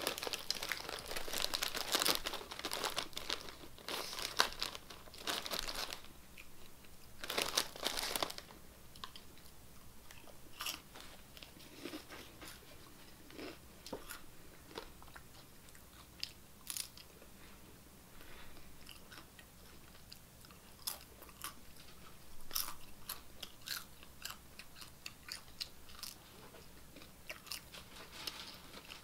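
Crunchy snack chips being eaten close to the microphone: a hand in a Flamin' Hot Cheetos bag and loud, dense crunching for the first eight seconds or so, then quieter, scattered crunches and chewing.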